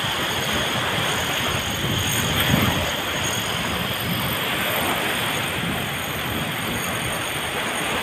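Strong wind rushing over the microphone together with small sea waves washing onto sand: a steady rushing noise that swells briefly about two and a half seconds in.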